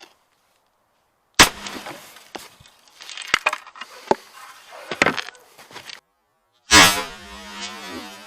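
Car airbags going off with a sharp bang, followed by several seconds of knocks and rattles. A second sharp bang with a ringing tail comes about five seconds after the first.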